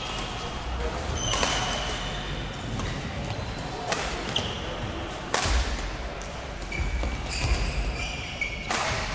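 Badminton rallies in a sports hall: sharp racket strikes on the shuttlecock a few seconds apart, with short high squeaks in between and a murmur of voices.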